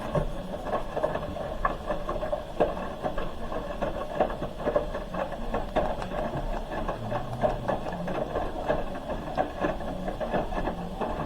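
Hoover H-wash 300 Plus front-loading washing machine running mid-wash: a steady hum with many irregular light clicks and knocks from the turning drum and load.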